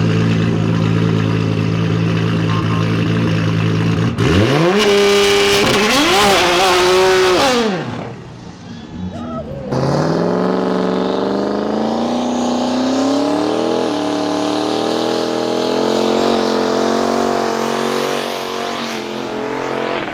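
Car engine sound in several short stretches. It starts as a steady engine note, then revs up and down twice about four seconds in. After a brief quieter gap comes a long pull with the pitch rising steadily, then a steadier engine note near the end.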